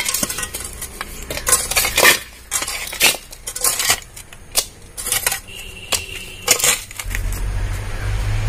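Metal hoe chopping and scraping into stony soil and scooping it into a metal pan: a run of uneven scrapes, chops and clinks of the blade against earth, stones and the pan. About seven seconds in, the strokes stop and a low rumble takes over.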